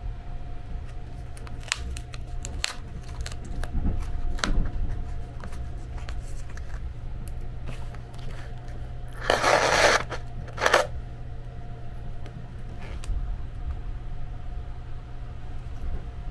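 Paper and cardboard rustling, then the yellow pull-string of a self-heating (steam-heating) bento box yanked out with a short rasping zip about nine seconds in and a brief second one just after. This is the pull that starts the box heating itself. A steady low train hum runs underneath.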